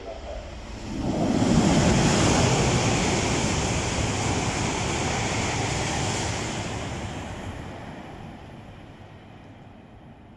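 E2 series Shinkansen passing through the station at speed without stopping: a rushing noise of air and wheels that swells sharply about a second in, holds loud for several seconds as the train goes by, then slowly fades away.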